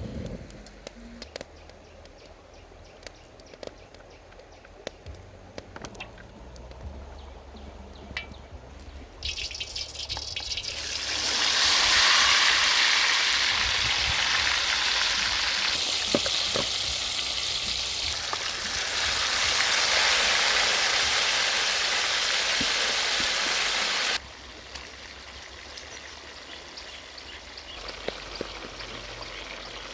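Pork frying in hot oil: a sizzle with scattered crackles that swells to a loud, bright sizzle about ten seconds in. Near the end the loud sizzle cuts off suddenly, and a quieter crackling sizzle goes on.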